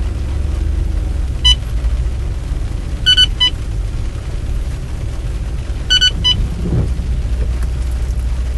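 Steady low rumble of road and engine noise inside a car moving slowly on a wet highway. Short high-pitched beeps cut through: once about a second and a half in, a quick cluster around three seconds, and again around six seconds.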